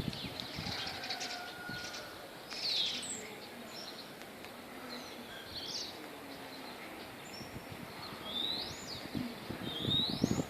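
Wild birds calling and chirping, a scattering of short high whistled notes, some sweeping down and a couple near the end sweeping up in pitch, over faint outdoor background noise.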